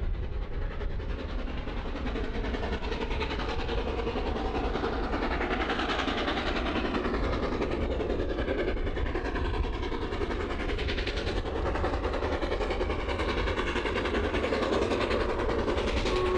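Steam locomotive hauling a freight train, approaching and growing a little louder toward the end.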